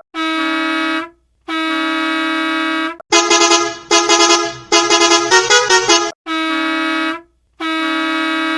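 Bus horn sounding in steady, even-pitched blasts: two long honks, a run of quick short toots with a few pitch changes in the middle, then two more long honks.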